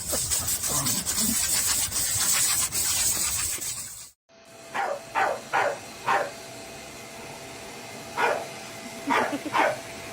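A dog barking in short, separate barks: four in quick succession about five seconds in, then three more near the end, over a faint steady tone. Before that, about four seconds of noisy rustling and clatter that cuts off abruptly.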